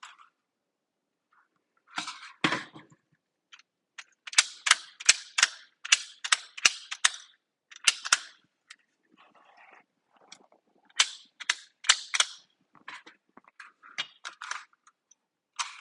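Sharp plastic clicks and snaps from the internal parts of a disassembled Nerf Rival Hera blaster being fitted and worked by hand: a few clicks about two seconds in, a quick run of many clicks from about four to eight seconds, then more scattered clusters.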